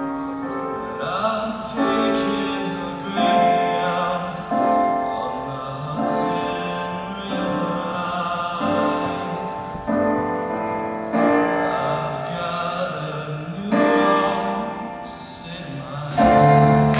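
A male solo voice sings a slow ballad over piano accompaniment. The music gets louder shortly before the end.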